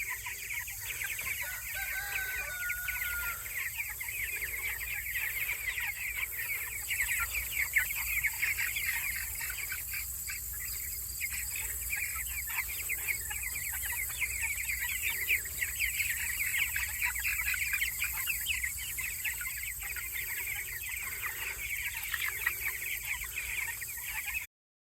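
A flock of poultry chirping and clucking steadily, many short high calls overlapping, with one longer call about two seconds in.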